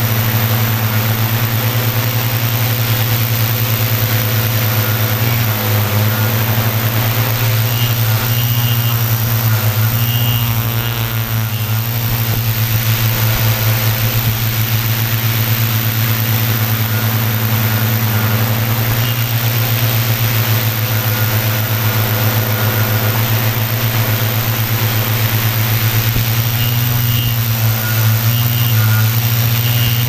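Quadcopter's electric motors and propellers buzzing steadily in flight, heard loud and close from the camera on the quad itself; the tone wavers for a couple of seconds about ten seconds in.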